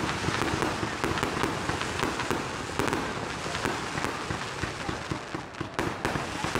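Fireworks shot up from the ground and bursting overhead: a dense, continuous run of bangs, pops and crackling, easing briefly about five seconds in before picking up again.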